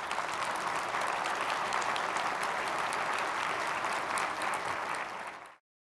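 Audience applauding steadily, then cut off suddenly near the end.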